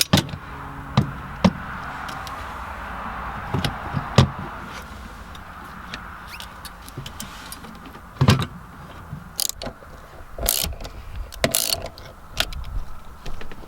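Scattered clicks, knocks and clanks of shifter parts and tools being handled while swapping the shift lever assembly in a car's centre console, with a faint steady hiss behind.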